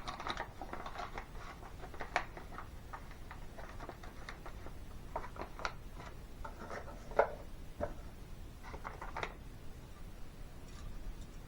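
Small parts being handled: scattered light clicks, taps and rubbing, with a sharper knock about seven seconds in.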